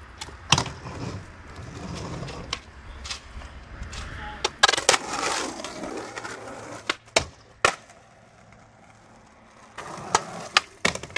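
Skateboard wheels rolling on asphalt, broken by a dozen or so sharp clacks of the board popping and landing, with a rough scrape against a concrete ledge about five seconds in. It goes quieter for a couple of seconds before more clacks near the end.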